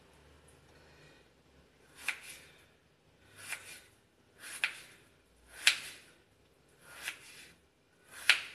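Kitchen knife cutting through raw potato and knocking on a wooden cutting board: six separate cuts, a little over a second apart, starting about two seconds in.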